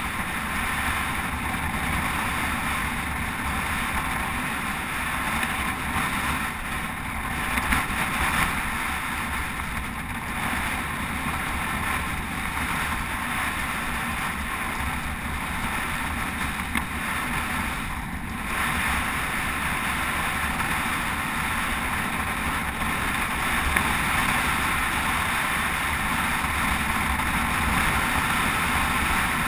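Steady rushing wind noise on a moving GoPro's microphone at cycling speed, with low road rumble underneath.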